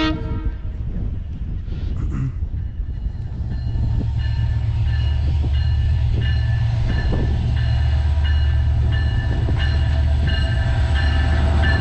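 A freight train going by, hauled by a diesel locomotive. A steady low rumble grows louder from about three seconds in, and a high ringing tone repeats above it about every two-thirds of a second.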